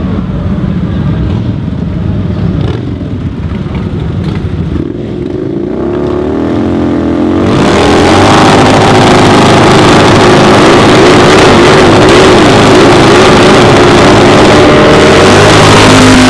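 Harley-Davidson V-twin motorcycle engines: bikes pulling past at moderate revs, then about halfway through a much louder exhaust revving hard, its pitch repeatedly rising and falling.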